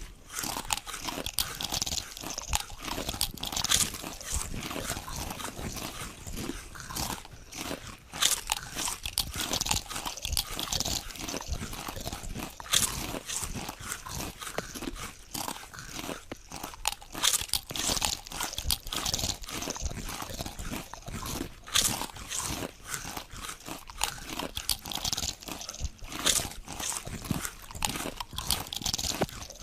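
Potato chips being bitten and chewed: a continuous run of crisp, irregular crunches.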